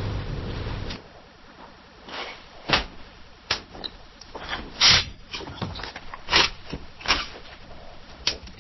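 Office ambience: a steady low rumble that cuts off about a second in, then a quiet room with scattered sharp clicks and knocks from desk handling, the loudest about halfway through.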